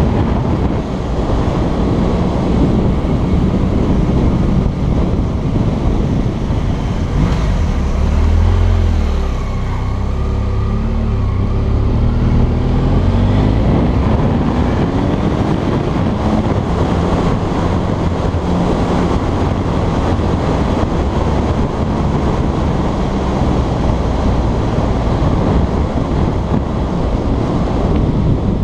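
Motorcycle engine running under way, with wind rushing over the microphone. The engine note drops about eight seconds in and climbs again a few seconds later.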